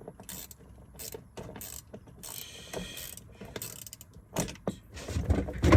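Metal parts of a uPVC door lock mechanism being worked and fitted: a string of separate clicks and short metallic scrapes, with louder knocks near the end.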